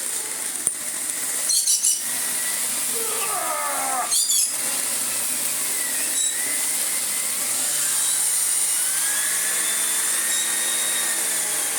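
Miele S5 vacuum cleaner running with a Miele cat and dog turbo brush head, its air-driven brush roll spinning and whining, the pitch rising and falling as it is worked. There are two brief clattery bursts in the first half. The turbo head is working well.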